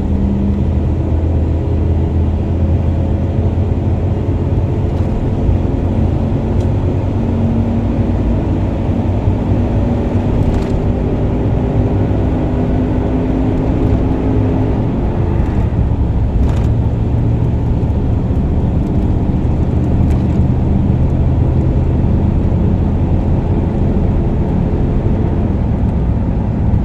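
A truck's engine and road noise at freeway speed, heard from inside the cab: a steady low rumble with an engine note that climbs gradually and falls back about fifteen seconds in. The freshly repaired truck is being listened to for faults, and nothing unusual stands out: it runs normally.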